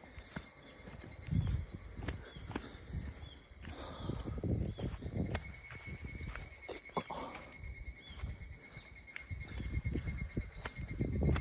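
Steady, high-pitched summer insect chorus droning without a break, with irregular footsteps on a woodland path underneath.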